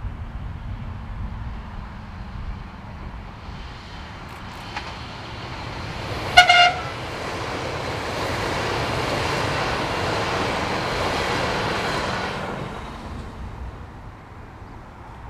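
A Melbourne Metro electric suburban train gives one short horn toot as it approaches, then runs past with a swelling rumble and hiss of wheels on rail that fades away as it leaves.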